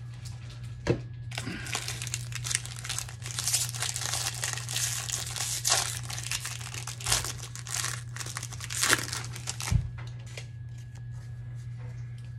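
Foil wrapper of a Topps Update baseball card pack crinkling and tearing as it is opened by hand, over a steady low hum. A sharp knock comes about a second in and another near the end.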